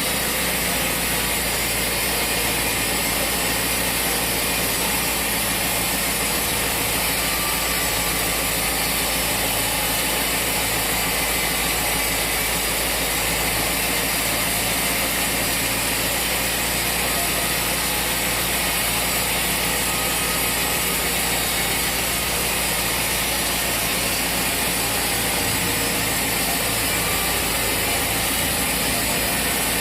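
Sawmill machinery running steadily, a continuous mechanical drone that stays even throughout.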